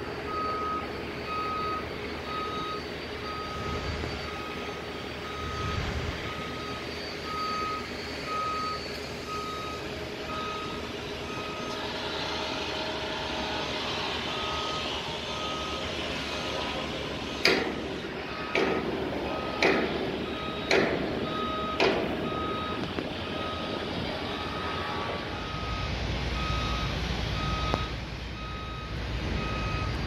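Backup alarm of construction equipment beeping steadily, about one beep a second, over the steady background noise of a building site. Partway through come five loud clanks, about a second apart.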